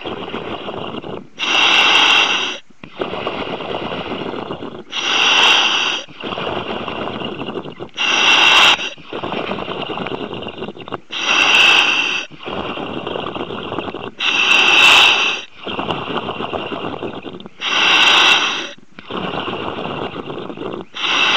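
A diver breathing through underwater breathing gear, heard on the diving communications line: a loud rush of gas about every three and a half seconds, with a steady hiss between breaths.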